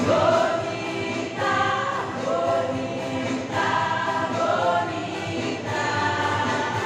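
A women's choir singing together, in sustained phrases that change every second or two.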